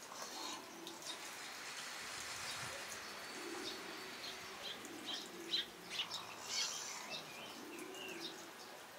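Birds calling: short high chirps scattered through the middle, and three or four brief low cooing calls, over a faint steady hiss.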